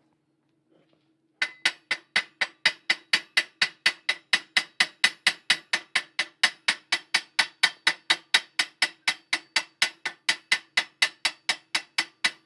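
Chipping hammer striking a fresh weld bead in an even, ringing rhythm of about three or four blows a second, knocking the slag off. A faint steady hum runs underneath.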